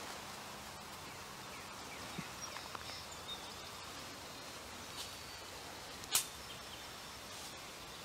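Quiet outdoor ambience with a few faint, short bird chirps and one sharp click about six seconds in.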